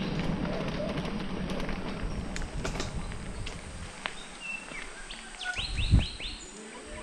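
Mountain bike rolling over a gravel dirt road: tyre crunch and rattle with wind on the microphone, easing off about four seconds in. Birds chirp throughout, with a quick run of about five chirps near the end, at the same moment as a brief low thump.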